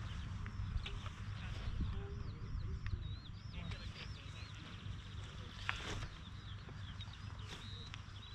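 Birds chirping with quick rising and falling twitters, over a steady low rumble. A brief knock comes about two-thirds of the way through.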